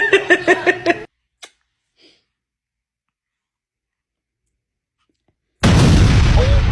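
A baby giggling in quick, even bursts, about five a second, which cuts off abruptly after about a second. A few seconds of dead silence follow, then near the end a loud burst of rushing noise.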